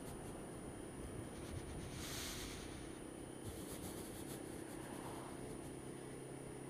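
Honda Dio scooter's small engine running steadily at low speed, with road and wind noise, and a short rush of hiss about two seconds in.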